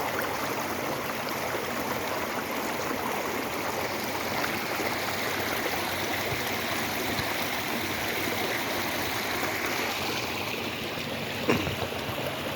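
Creek swollen with floodwater after heavy rain, rushing fast and steady. A single sharp thump near the end.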